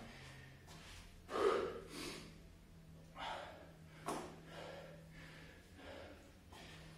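A man breathing hard in a series of heavy, gasping breaths, catching his breath after exertion; the loudest breath comes about a second and a half in.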